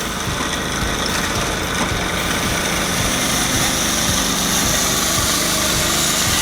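A machine's engine running steadily, with a steady high whine over it.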